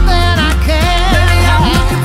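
Background pop music: a wavering melody over deep, gliding bass notes.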